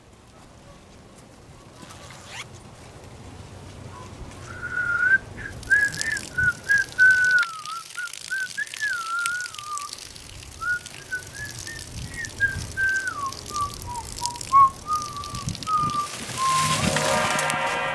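A person whistling a slow, wavering tune that rises and falls, for about twelve seconds. Near the end a steady droning chord swells in.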